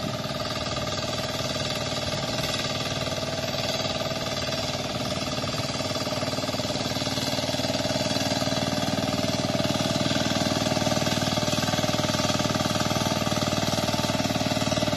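Two-wheel hand tractor's engine running steadily under load as it plows a flooded rice paddy, getting slightly louder toward the end.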